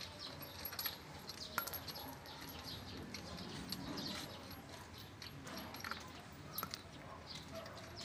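Lug nuts being spun off a Toyota Fortuner's wheel studs by hand: faint, scattered metallic clicks and clinks, with a sharper click about one and a half seconds in and another near the end.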